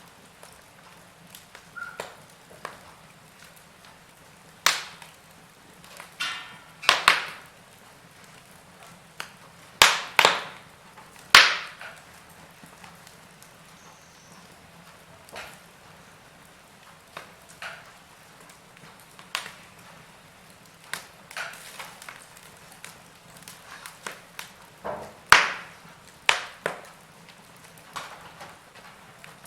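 Burning logs in a fireplace crackling: sharp pops and snaps at irregular intervals over a faint steady hiss, with the loudest pops bunched about a third of the way in and again near the end.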